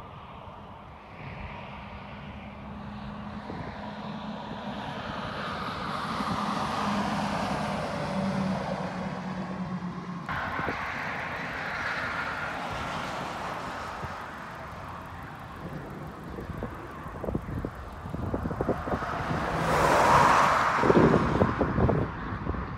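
Highway traffic passing: tyre and engine noise swelling and fading as vehicles go by, with the loudest pass about three-quarters of the way through. Gusty wind knocks on the microphone in the last few seconds.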